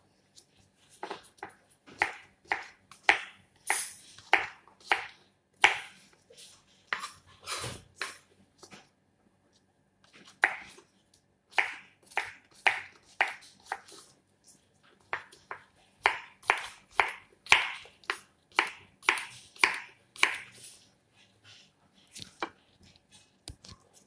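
Kitchen knife cutting squash into cubes on a wooden cutting board: a run of sharp knocks of the blade on the board, about one or two a second, with a few short pauses and sparser strokes near the end.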